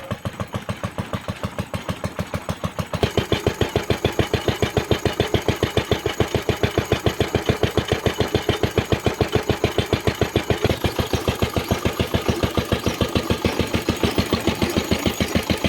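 Homemade narrow-gauge locomotive's engine running with an even, rapid beat of about six pulses a second, getting louder about three seconds in.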